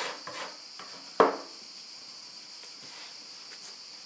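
Metal bench scraper scraping across a wooden pastry board, a few quick strokes, then one sharp knock about a second in as it is put down on the board. After that only faint handling of dough.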